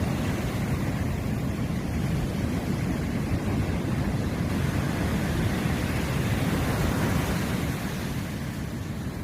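Wind buffeting the microphone with a deep rumble, over the steady rush of sea waves; a wave swells up about six seconds in.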